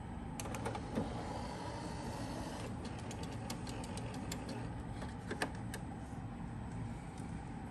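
Denon DCM-500AE five-disc carousel CD changer opening its drawer: a quiet motor whirr with a run of small mechanical clicks and ticks from the loading mechanism.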